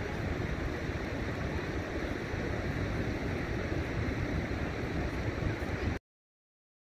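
Fast, shallow river water rushing over rocks, with wind buffeting the microphone in gusty low rumbles. The sound cuts off suddenly to silence about six seconds in.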